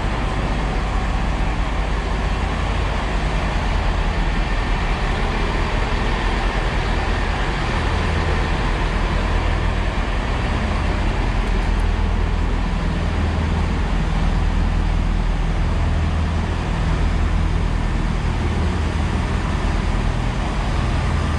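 Underfloor diesel engines of a GWR Networker Turbo diesel multiple unit idling at the platform: a steady low rumble that swells and eases slowly.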